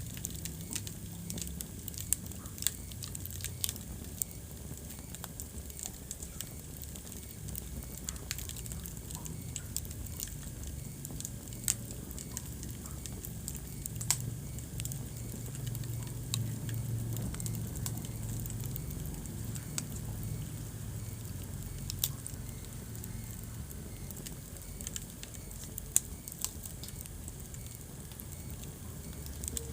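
Wood fire burning in a fireplace: a steady low rumble of flames with irregular crackles and a few sharp, louder pops from the burning logs.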